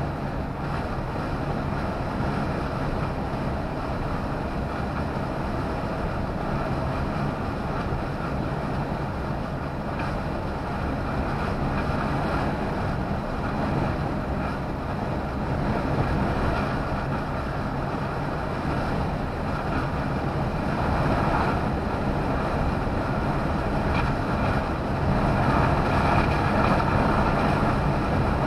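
Steady engine drone and tyre and wind noise of a lorry cruising at motorway speed, heard from inside the cab, growing a little louder in the last several seconds.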